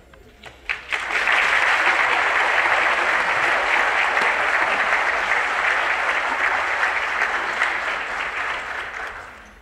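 Audience applause: a few scattered claps, then steady clapping that fades out near the end.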